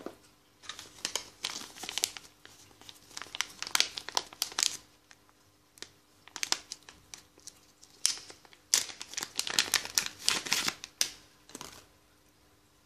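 Paper wrapping crinkling and rustling as it is unfolded from around a coiled cable, in several bursts with short pauses between.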